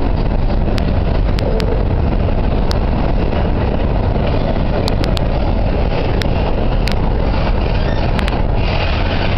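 Covered hopper freight cars rolling past on the rails: a steady wheel rumble with scattered sharp clicks.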